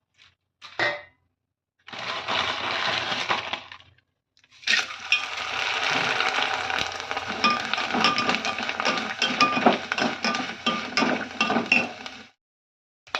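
Dry puffed rice (murmura) being poured into and stirred in a metal pan: a crisp rattling rustle peppered with sharp clinks. It comes in two stretches, a short one and then a longer one, with dead silences between.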